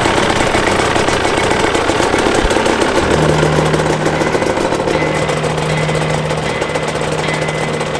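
Dirt bike engines idling with a rapid, even firing; a steady low drone joins in about three seconds in.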